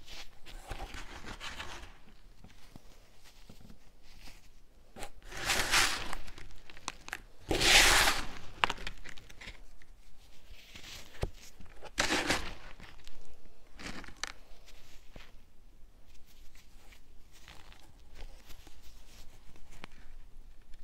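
Clumps of baking soda crunching and crumbling as they are squeezed in the palms. There are several louder crunches, the loudest about eight seconds in and others near six, twelve and fourteen seconds, with softer crumbling between them.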